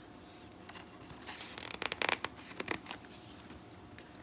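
A picture-book page being turned by hand: paper rustling and scraping, with a quick run of crisp flicks about two seconds in.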